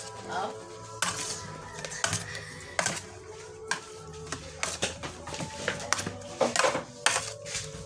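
Food being tossed and mixed by hand in a stainless steel tray, with irregular metallic clinks and knocks of the tray.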